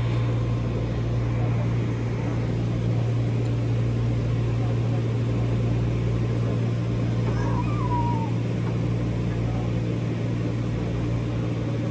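Steady low electrical hum from a stopped electric train, its onboard equipment running while the train stands. A brief wavering higher sound about three-quarters of the way through.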